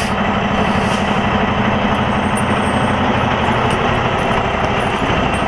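Semi-truck diesel engine running steadily at low revs while the truck is backed up a few feet to roll onto the snow chains.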